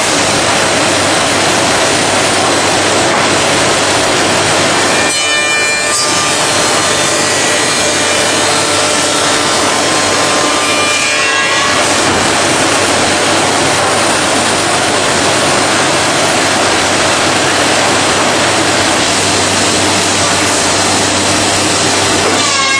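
CNC through-feed door-making machine cutting wood, a loud steady machining noise with brief changes about five and eleven seconds in.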